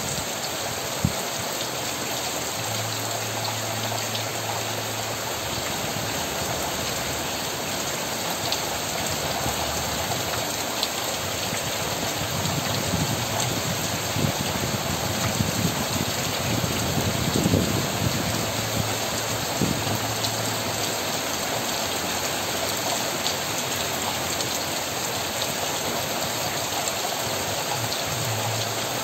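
Steady rain falling on leaves and yard surfaces: an even, unbroken hiss with scattered louder drops ticking through it.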